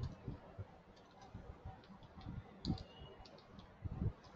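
Computer keyboard typing: a few scattered keystrokes and clicks, with louder key thumps near the middle and near the end.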